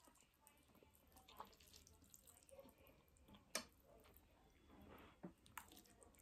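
Near silence with a few faint, brief clicks; the loudest comes about three and a half seconds in.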